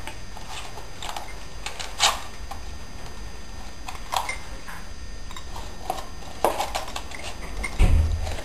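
Dog gnawing on a chew: irregular crunching and clicking bites every second or two, with a louder low thump near the end.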